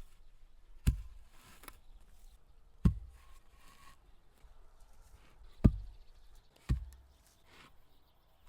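Four heavy knocks at uneven intervals, each with a short low thud, and faint handling noises between them.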